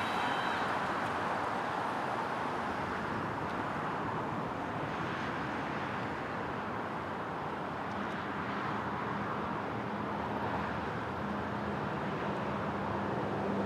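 Steady road traffic noise from an expressway. A low, steady engine hum joins about eight seconds in.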